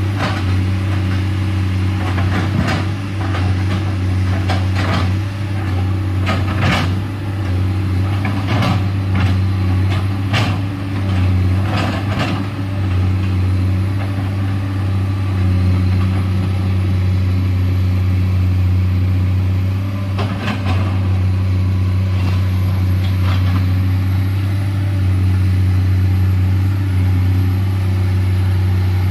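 Komatsu PC210LC excavator's diesel engine running steadily with a deep hum. Sharp knocks come repeatedly in the first half and a few more later.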